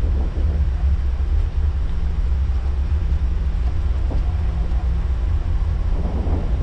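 Steady low rumble and hum inside an Airbus A340 cockpit during taxi, with all four engines running at idle.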